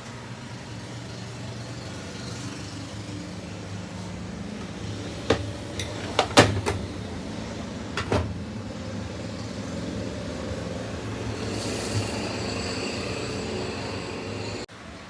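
Automatic washing machine running with a steady low hum. There are a few sharp knocks or clicks about midway, and a high whine comes in for the last few seconds.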